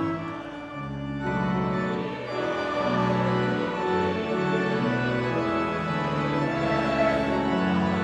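Four-manual church organ playing a hymn in slow, sustained chords, with a brief break about a second in.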